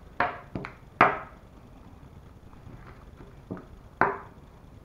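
A handful of sharp knocks of a screwdriver handle and a leather bit holder full of metal bits being handled on a wooden workbench. The loudest knocks come near the start, about a second in, and near the end.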